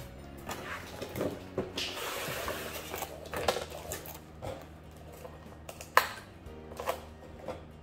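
Plastic packaging rustling and crinkling as it is handled, with a few sharp clicks, the loudest about six seconds in, over background music.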